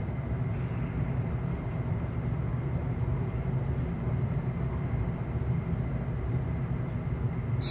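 Steady room background noise: a low hum under an even hiss, with a faint high tone.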